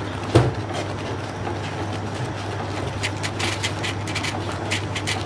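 Steel ladle stirring thick gram-flour paste in a pan: one knock about half a second in, then a run of quick sharp clicks in the last two seconds, over a steady low hum.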